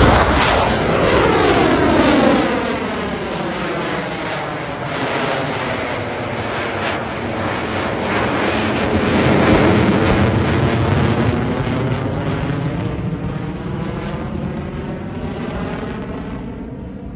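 F-22 Raptor's twin turbofan engines at takeoff power: a loud jet noise with a sweeping, phasing rush as the jet passes and climbs away. It fades steadily toward the end.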